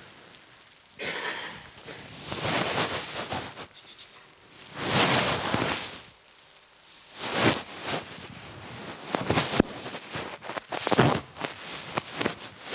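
Irregular rustling of a fabric jacket being handled and taken off close to a microphone, in several uneven bursts with a few clicks of handling noise toward the end.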